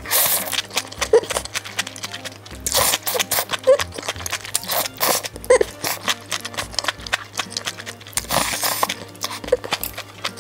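Close-miked chewing of crunchy jellyfish dressed with mustard: a dense run of quick crisp clicks and crunches, over soft background music.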